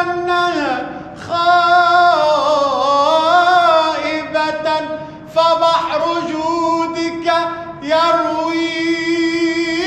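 A solo male voice sings an Islamic devotional chant (tawshih) in long, drawn-out melismatic phrases, holding vowels with ornamented pitch glides. It breaks off briefly for breath about a second in and again about five seconds in.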